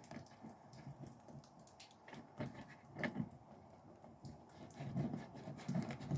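Faint, irregular small clicks and taps of a plastic trim fastener being handled and fitted into a trunk trim panel.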